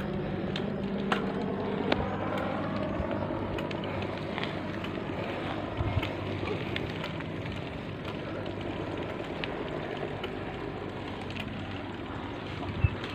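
Steady wind and road noise from a mountain bike being ridden on a paved road, with scattered clicks and rattles and a thump near the end.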